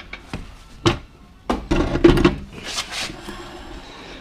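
Metal tools and parts being handled on the machine: a series of sharp knocks and clatters, busiest in the middle, then a short hiss.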